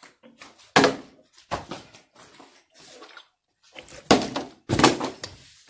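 Plastic water bottle flipped and landing or falling on a wooden stool top: several sharp thunks.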